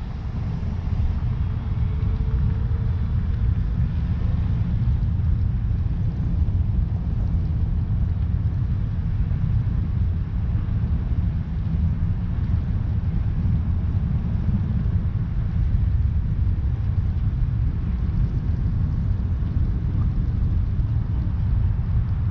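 Steady low rumble of a car being driven: engine and road noise.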